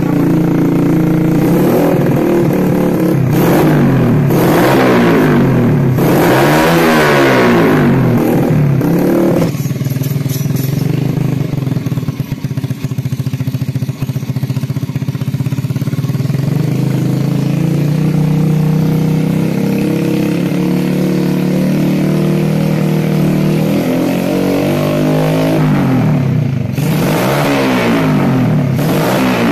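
Yamaha Vega R New motorcycle's single-cylinder four-stroke engine, through a bored-out exhaust packed with sand instead of glasswool. It is revved up and let fall back several times, settles to a steady idle for most of the middle, and is revved again near the end.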